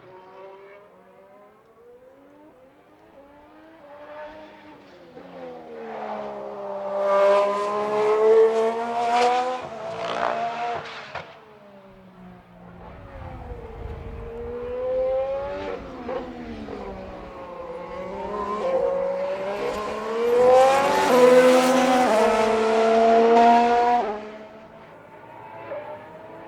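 Formula 1 cars' 1.6-litre turbocharged V6 hybrid engines running on track, climbing in pitch under acceleration and dropping back at each gear change or lift. The loudest car passes come about seven to eleven seconds in and again about twenty to twenty-four seconds in, with fainter engine sound between them.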